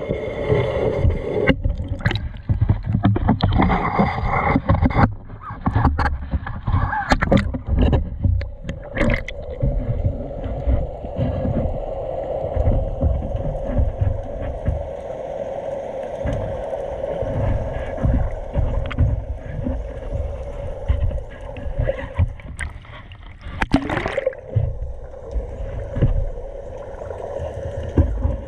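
A boat engine running steadily with a low hum, with water splashing and a run of knocks over roughly the first nine seconds.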